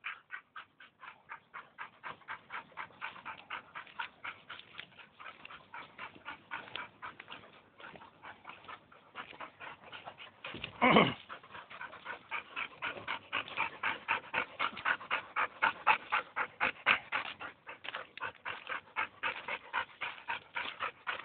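A dog panting rapidly and steadily, about five breaths a second, close to the microphone. A brief louder noise breaks in about eleven seconds in.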